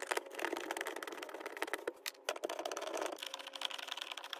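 A hand screwdriver with a T30 Torx bit backing screws out of a plastic door-pocket trim panel: a dense run of small clicks and scrapes from the bit and the turning screw, with a short lull about two seconds in.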